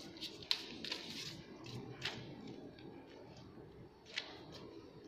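Sheet of sublimation paper rustling and crackling under hands smoothing it flat, in a few short strokes, the sharpest about half a second, two seconds and four seconds in.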